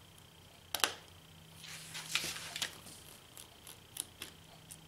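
Small clicks and taps of a precision screwdriver and fingers working tiny screws out of a smartphone's back, the loudest a sharp click about a second in, with a short stretch of rustling handling about two seconds in.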